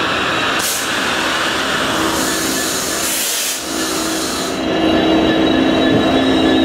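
Class 66 diesel locomotive's two-stroke V12 engine running as it draws slowly past, with thin high-pitched squealing from the wheels and brakes. A loud hiss runs from about two seconds in for a couple of seconds, and the engine note swells near the end as the engine compartment comes by.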